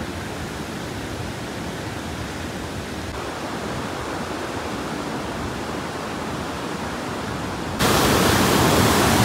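Steady rushing of the flood-swollen Beas river. About eight seconds in it jumps suddenly louder and hissier, the churning floodwater close by.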